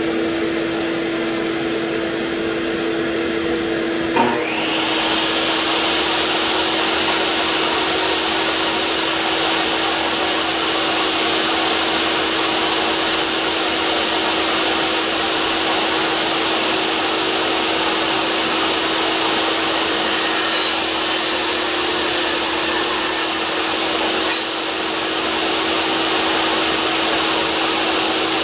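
A shop vacuum hooked to a jobsite table saw's dust port and the saw running with no wood being cut: a steady drone with one held tone. About four seconds in a second motor starts with a click and adds a higher hiss, and both then run on evenly.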